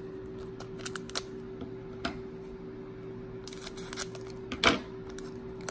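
A foil Pokémon booster pack and its cards being handled: scattered light clicks and crinkles, a denser patch of them about three and a half seconds in, and one sharper click near the end.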